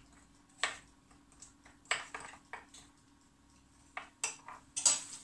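A pastry brush stirring beaten egg in a small bowl, knocking against the bowl with scattered light clicks and taps. The loudest knocks come near the end.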